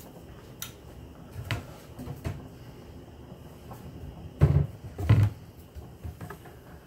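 A few light knocks and clicks, then two heavier thumps a little under a second apart, from things being handled in a kitchen.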